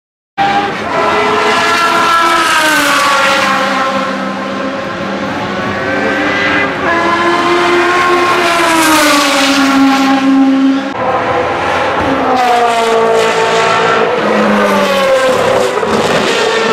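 Racing car engines at speed, their pitch climbing and falling repeatedly through gear changes and passes. The sound starts sharply about half a second in and changes abruptly about eleven seconds in. After the change it comes from Ferrari 458 GT3 V8 race cars accelerating out of a corner.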